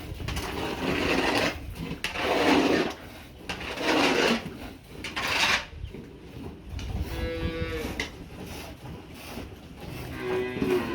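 Dairy cattle: a run of four short rasping noises, then two mooing calls a few seconds apart.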